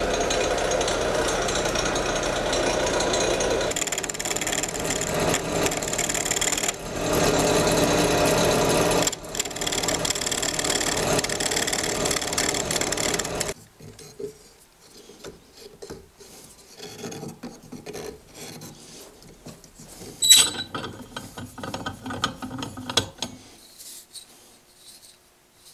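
Belt-driven wood lathe spinning an oak dowel while a rasp is held against it: a steady scraping over the hum of the motor, which stops suddenly about thirteen seconds in. After that come faint handling sounds and one sharp metallic click.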